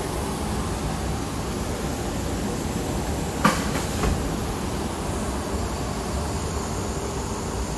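Steady low mechanical drone of running workshop machinery, with a sharp click about three and a half seconds in and a softer one just after.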